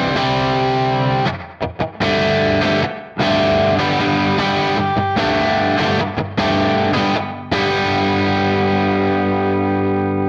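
Electric guitar (Stratocaster on its middle pickup) playing a rhythm part of chords through a J Rockett Archer Clean Klon-style boost pedal, with reverb. The chords are cut short several times with brief gaps, then a final chord is left ringing and fading near the end.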